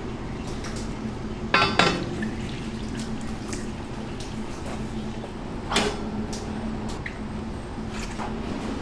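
Kitchen work: dishes and metal utensils clinking, with two louder clatters, one about a second and a half in and one near six seconds, over a steady hum.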